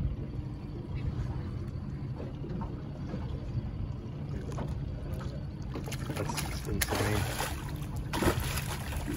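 Steady low rumble of the boat with wind on the microphone; from about six seconds in, surges of splashing as a hooked fish thrashes at the surface beside the boat.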